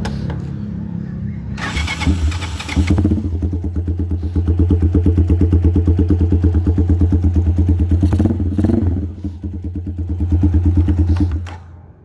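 Rusi Mojo 200 motorcycle engine running with a steady pulsing exhaust note, after a brief burst of noise about two seconds in; the note dips around nine seconds, picks up again, and the engine cuts off about a second before the end.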